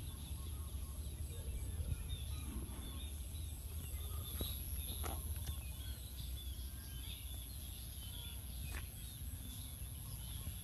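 Birds chirping and twittering in many short high calls throughout, over a steady low rumble, with a couple of sharp clicks.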